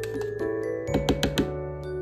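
Background music with soft mallet-like tones, and a quick run of four or five sharp clicks about a second in.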